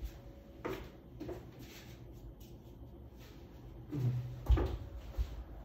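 A few light knocks and handling sounds, the loudest a low thud about four and a half seconds in.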